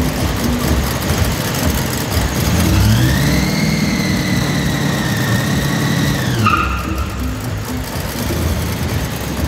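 Supercharged engine of a classic Ford Mustang with a hood-mounted blower, idling, then revved about two and a half seconds in. The pitch rises and holds with a high whine for about three and a half seconds before dropping back to idle.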